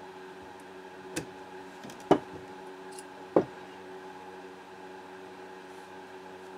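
A few sharp metal clicks from a pistol slide, small parts and hand tools being handled and set down on a workbench: a small one, then two loud ones about two and three and a half seconds in. A steady low hum runs underneath.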